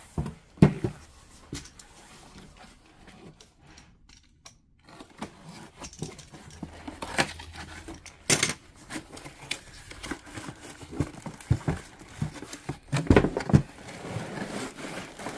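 Cardboard box and packaging being opened by hand: rustling, crinkling and tearing, with a few sharp knocks.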